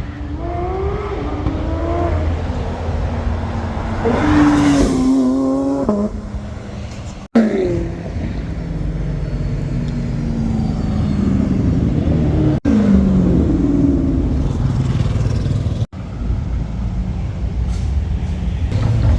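Several cars accelerating hard and passing one after another. Each engine revs up in pitch, then drops as it goes by, over a steady low rumble. The sound cuts out abruptly three times.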